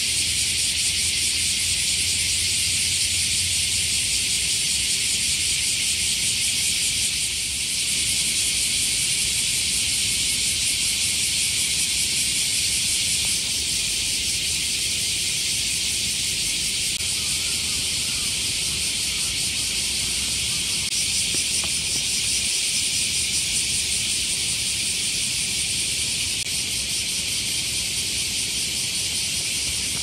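Dense chorus of summer cicadas: a steady, high-pitched shrilling with a fine rapid pulsing.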